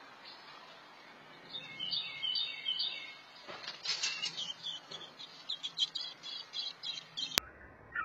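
American robin nestlings begging with rapid high chirps as an adult robin flutters in and lands at the nest. A single sharp click near the end.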